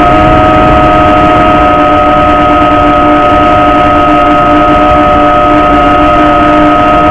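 A drone's motors and propellers whining at a steady pitch as it climbs, loud on the drone's own onboard camera microphone.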